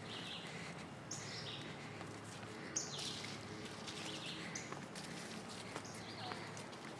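Small birds chirping over and over, short high calls that step down in pitch and come about once a second, over a steady low background rumble. There is one sharp snap a little under three seconds in.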